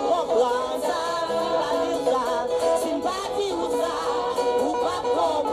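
Music: a voice singing over instrumental accompaniment.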